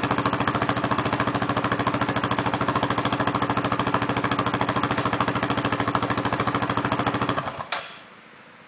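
Yamaha Grizzly 660 ATV's single-cylinder four-stroke engine running steadily at idle through an FMF Powerline slip-on exhaust, in an even pulsing beat, then shutting off about seven and a half seconds in. The carburetion is not yet dialed in, so it runs weak and rich at the bottom end.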